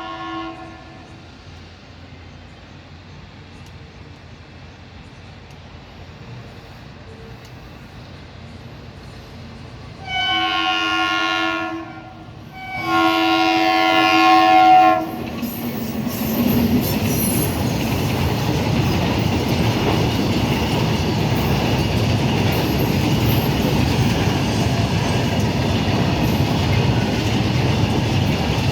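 Indian Railways WAG-9 electric locomotive sounding its horn in two long blasts, the second slightly wavering in pitch. After the blasts a train passes close by with a steady heavy rumble and wheel clatter.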